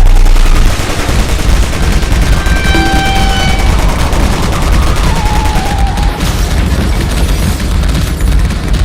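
Rapid, continuous clatter of airsoft guns firing in long strings over a loud low rumble.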